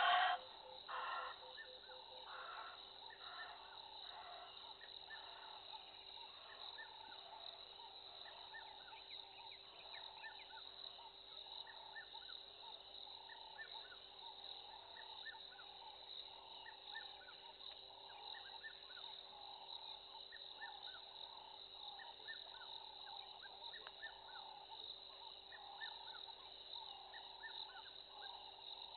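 Faint wildlife chorus of many short chirps over a steady low hum. A loud animal call right at the start is followed by a few fading repeats over the next few seconds.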